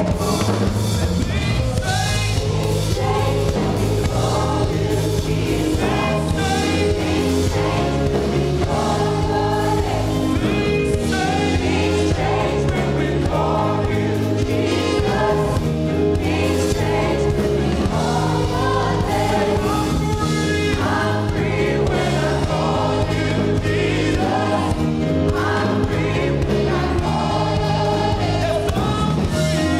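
Live gospel worship song: a group of singers singing together over a full band, with a steady bass line beneath.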